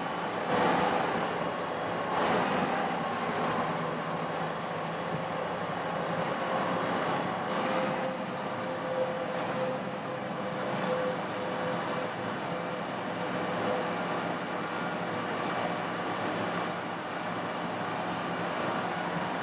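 Bucket truck engine running with its PTO-driven hydraulics working as the Altec AT40M boom rises, a steady running sound. A faint steady whine comes and goes in the middle, and there are short knocks about half a second and two seconds in.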